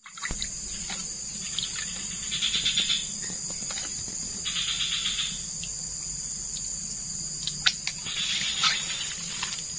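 Steady high-pitched chorus of insects, with a buzzing trill that comes and goes about four times, each lasting under a second. A couple of sharp clicks stand out near the end.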